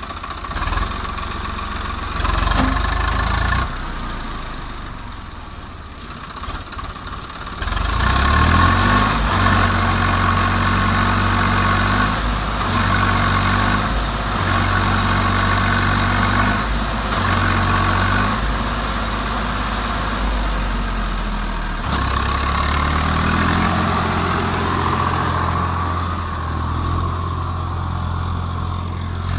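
Swaraj 744 FE tractor's three-cylinder diesel engine running while the tractor is stuck in mud. About eight seconds in it is revved up hard, and the revs rise and drop several times as it tries to pull free. Later it settles into a steadier run as the tractor moves off.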